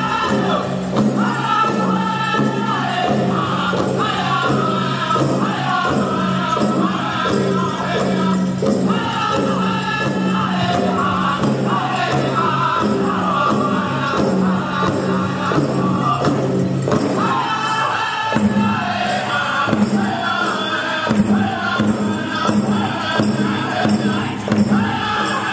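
Powwow drum group singing a chicken dance song in unison over a steady beat on a shared big drum, with dancers' bells jingling. The voices drop out briefly about two-thirds of the way through, then come back in over the beat.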